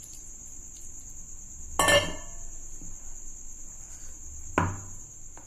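Two clinks of a utensil knocking against the mixing bowl while banana malpua batter is being mixed, one about two seconds in and a softer one near the end, each with a short ring. A steady high-pitched drone runs underneath.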